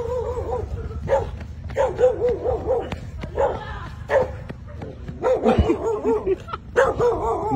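A dog barking several times, with wavering, whining cries in between.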